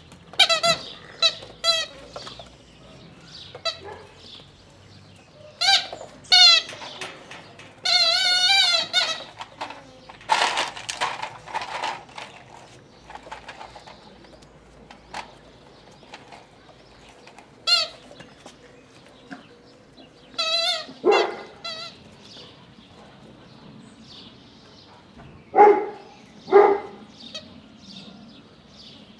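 Dobermann puppies yelping and squealing in play: a series of short, high, wavering cries, with two louder, lower cries near the end.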